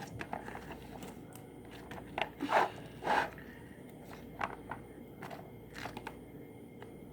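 Clear slime being worked by hand and blown into to make a bubble: a scatter of short, soft pops and crackles, the loudest two about two and a half and three seconds in.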